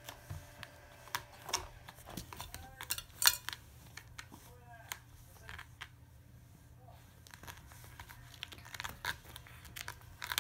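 A cat pawing and rolling against a scratching post: scattered scratches, rustles and knocks from its claws and body on the post, its base and the carpet, with one loud sharp knock about three seconds in.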